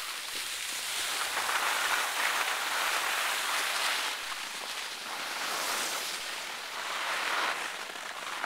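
Skis sliding and scraping over packed snow, a steady hiss that swells and fades with each turn, with wind rushing over the microphone of a skier filming on the move.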